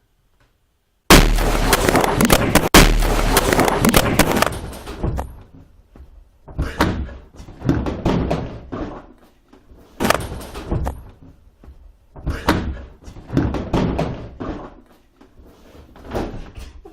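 Firecracker exploding inside a refrigerator: a sudden very loud bang about a second in, a second sharp bang a second and a half later, then a string of shorter, fainter noisy bursts every second or two.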